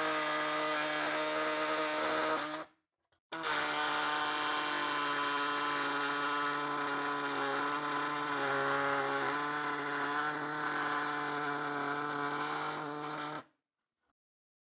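Hand-held pneumatic tool running steadily under load while cutting out a larger hole around the drain opening in the sheet-metal bottom of a Porsche 911 fuel tank. It pauses for under a second about two and a half seconds in, starts again and runs for about ten seconds before cutting off near the end.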